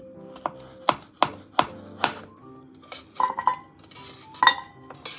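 Chef's knife chopping through food on a cutting board, five sharp cuts. Then the pieces are scraped off the board with the knife into a cast-iron Staub pot, with clinks and a ringing scrape of metal on the pot.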